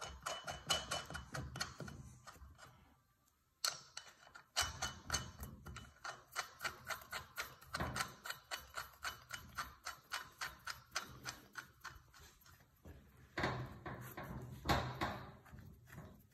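Lug nuts being spun by hand onto the wheel studs of a steel trailer rim: rapid metallic clicking, about four to five clicks a second, in several runs with short pauses.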